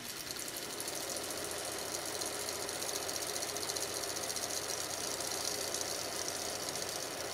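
Revox C270 reel-to-reel tape recorder fast-winding its tape with the covers off: a steady mechanical whir from the spinning reels and reel motors, with a fast, fine rattle.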